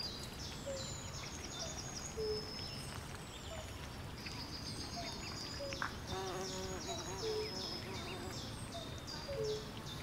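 Swamp soundscape: many birds chirping and whistling in quick high series, with short low calls repeating every second or two, over steady background noise.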